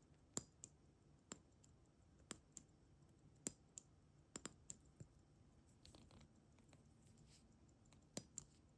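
About a dozen light, sharp mechanical clicks at uneven spacing, some in quick pairs: the pushers of a Seagull ST19 column-wheel chronograph being pressed, cycling start, stop and reset so the column wheel turns.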